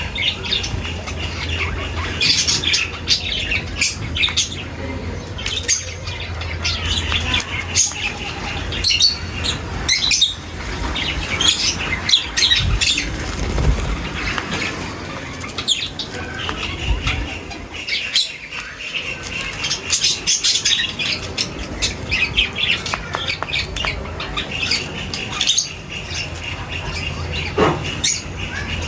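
Many small birds chirping and calling over one another, a dense run of short, sharp calls, with a steady low hum underneath.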